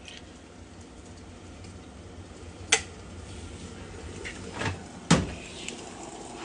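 Kitchenware handled on a countertop: a few sharp knocks and clacks, the loudest about five seconds in, over a faint low steady hum.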